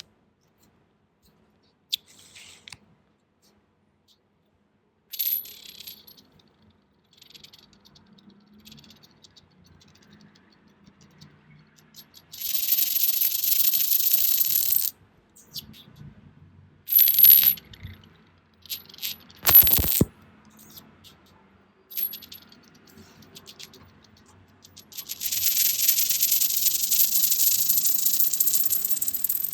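Metal coins on a hard surface: scattered short clinks, then two stretches of a few seconds each of continuous high metallic rattling with a ringing tone, one about halfway through and one near the end. A sharp knock falls between them.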